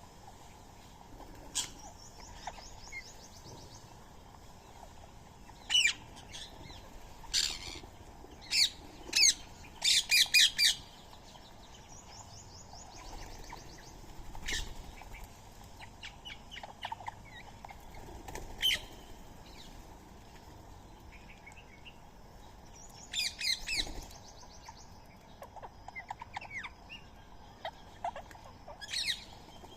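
Indian ringneck parakeets giving loud, harsh screeching calls, several in quick succession about a third of the way in and again in a burst near the end. Softer, fast trilling calls come in between.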